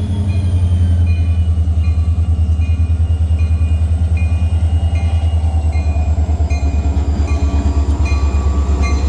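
Diesel freight locomotive passing close, its engine running loud with a deep, rapidly pulsing rumble and a faint whine that slowly falls in pitch. A bell rings at an even beat over it.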